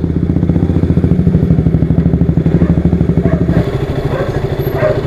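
Single-cylinder KTM motorcycle engine idling close by, a fast even pulsing beat; about three and a half seconds in the engine note drops lower and carries on idling.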